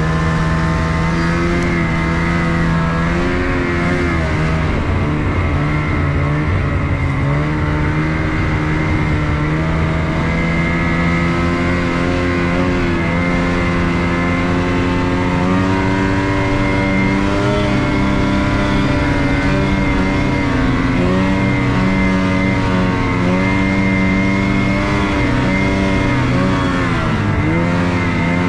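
Snowmobile engine running steadily under throttle while the sled travels over snow, its pitch drifting up and down with the throttle, with a brief drop and recovery near the end.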